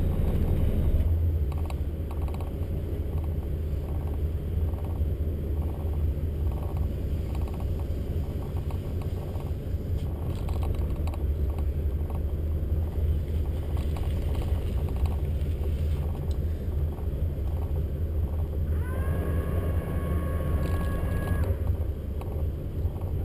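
Motor yacht's engines running slowly, a steady low drone. About nineteen seconds in, a high steady tone on two pitches sounds for about two and a half seconds.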